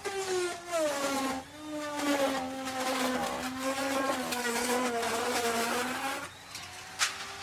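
Electric wood router cutting into wood: the motor's whine sags in pitch and wavers under load, mixed with rough cutting noise. About six seconds in, the bit comes free and the motor picks back up to a steady, higher whine. A sharp click comes near the end.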